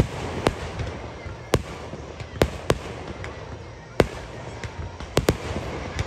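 Aerial fireworks bursting: about nine sharp bangs at irregular intervals over six seconds, the loudest right at the start, with a steady crackle and rumble between the reports.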